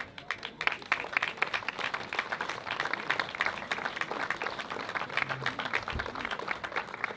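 An audience applauding: a dense, steady patter of many hands clapping.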